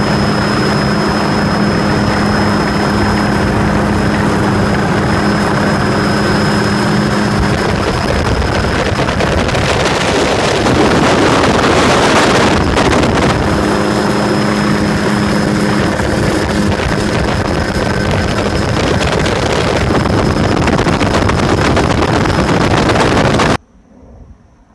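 A motor running steadily under a rush of wind noise, with a steady hum and a thin high whine, swelling louder in the middle before cutting off abruptly near the end.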